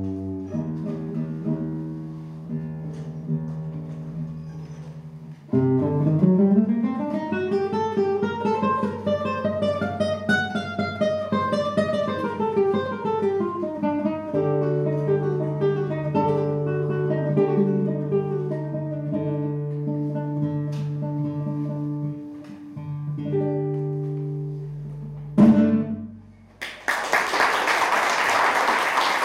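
Solo classical guitar played fingerstyle: a run of notes climbs and falls over held bass notes, and the piece ends on a strong final chord. Audience applause breaks out near the end.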